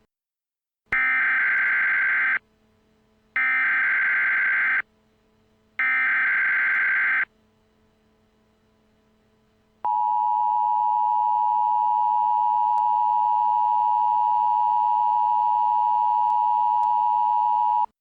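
Emergency Alert System SAME header: three short bursts of digital data tones, about a second and a half each with a gap between them. These are followed by the steady two-tone EAS attention signal, which runs about eight seconds and cuts off. Together they mark the start of a new emergency alert.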